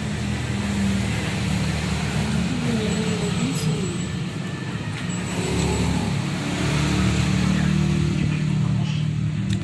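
A steady low engine hum, like a motor vehicle running close by, with a brief wavering tone about three seconds in.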